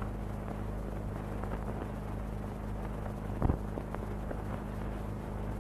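Steady low hum and hiss of an old 16mm film soundtrack transfer, with a few faint clicks and one louder click about three and a half seconds in.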